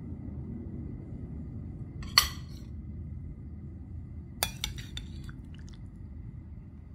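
Metal spoon clinking against a ceramic bowl: one sharp clink about two seconds in, then a quick run of several lighter clinks about two seconds later, over a steady low hum.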